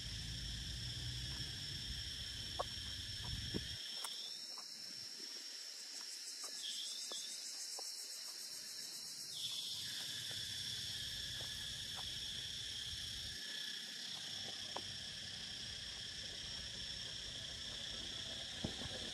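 A steady, high-pitched chorus of insects chirring in the trees, with one strand of it stopping for several seconds around the middle before it resumes.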